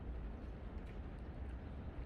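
Outdoor city ambience: a steady low hum of distant traffic, with a few faint footsteps.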